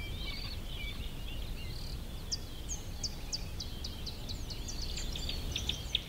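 Wild birds chirping and calling, overlapping high twittering notes, with a run of short, quick downward-swept whistles from about two seconds in, over a steady low rumble.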